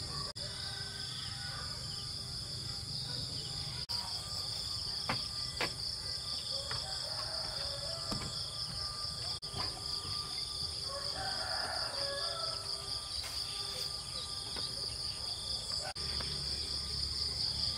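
Steady shrill chorus of insects, a high pulsing whirr, with a few light clicks.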